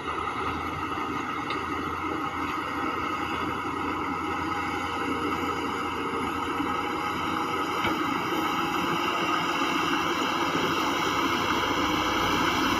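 Heavy diesel earthmoving machinery, a bulldozer or dump truck, running steadily and getting somewhat louder from about eight seconds in.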